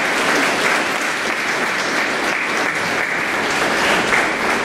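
Audience applauding: steady clapping from a seated crowd.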